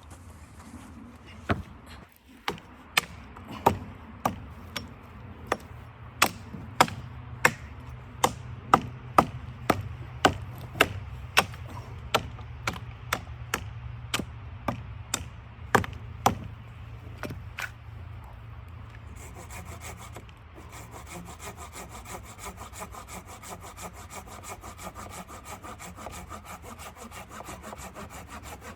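Wood being worked by hand. Sharp, regular knocks come about two a second for some fifteen seconds, then after a brief pause a steady, fast rasping like a hand saw cutting through wood.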